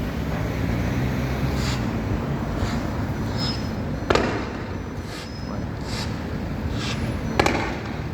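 Fireworks display: two sharp bangs about four and seven seconds in, each trailing off in an echo, with fainter pops and crackles between them.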